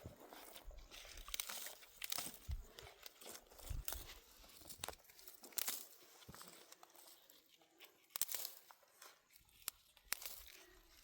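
Dry vegetation crackling and tearing in irregular snaps and rustles, quieter for a while past the middle.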